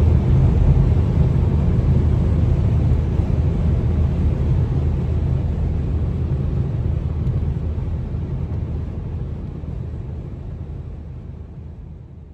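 Car driving at highway speed, heard from inside the cabin: a steady low rumble of road noise that fades out over the last few seconds.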